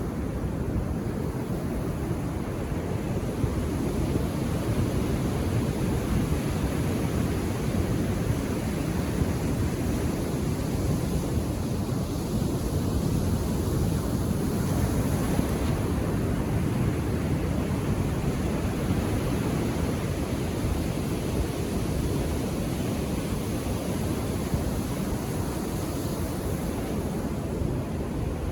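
Indian Ocean surf breaking and washing on the shore, a steady deep rumble of waves with gentle swells in loudness, with wind buffeting the microphone.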